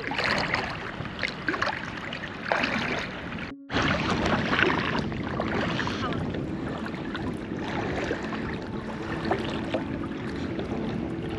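Steady outdoor noise of wind and shallow seawater, broken by a brief dropout a little over three seconds in. Faint background music with held notes comes in during the second half.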